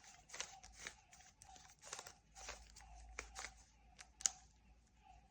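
A 3x3 Rubik's cube's plastic layers being twisted by hand: a faint, irregular run of quick clicks and scrapes, with one sharper click about four seconds in.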